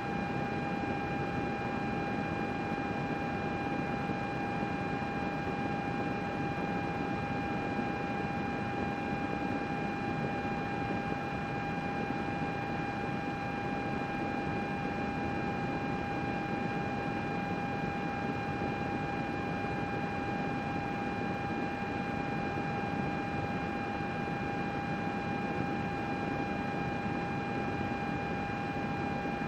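Computer running steadily: an even rushing noise with a constant whine over it.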